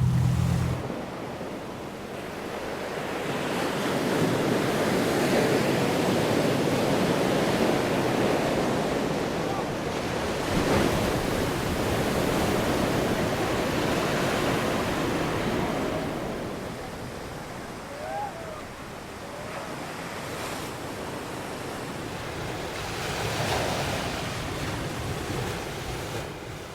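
Ocean surf: waves breaking and washing on a shore, the rush swelling and easing in long surges, with louder waves a few seconds in, midway and near the end.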